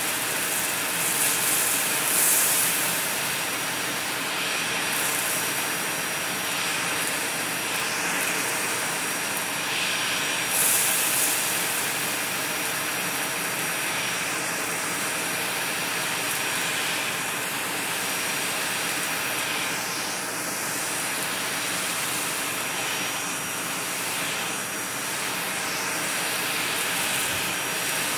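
Vacuum cleaner running steadily on carpet: a rushing hiss with a thin high steady tone, and two brief louder surges of hiss, about two seconds and ten seconds in.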